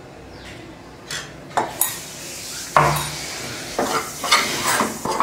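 Metal spoon stirring a dry spice-and-ground-coconut masala in an aluminium kadai: a string of short scrapes and knocks of the spoon against the pan, starting about a second in.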